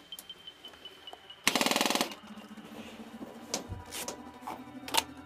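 Airsoft electric gun firing one short full-auto burst of rapid clicks, about half a second long, about a second and a half in, followed by a few single sharp snaps.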